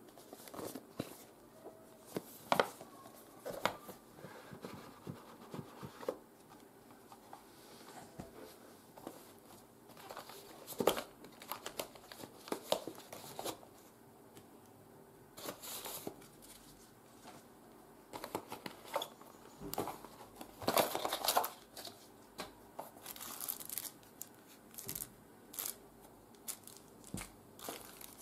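Cardboard box and plastic accessory bags handled by hand: irregular rustling, scraping and crinkling, with a few louder stretches of crinkling about a third of the way in and again about three quarters of the way through.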